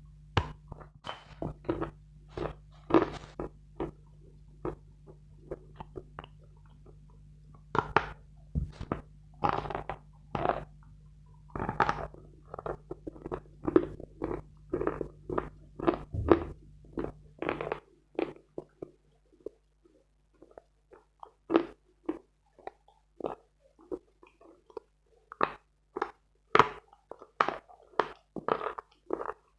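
Khrapovsky chalk, a dense dry eating chalk, being bitten and chewed close to the microphone: a fast, irregular run of sharp dry crunches.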